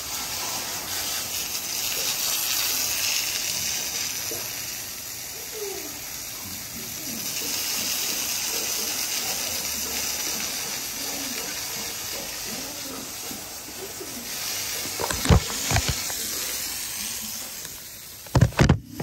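Water spraying from a garden hose's pistol spray nozzle onto a kennel run, a steady hiss that swells and eases. A few loud knocks come near the end.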